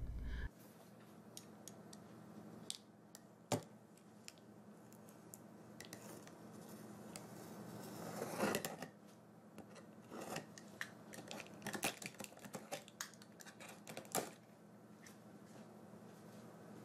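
Utility knife cutting the packing tape on a cardboard box: faint scrapes and sharp clicks, with a longer slitting sound about eight seconds in, followed by a run of small clicks and taps.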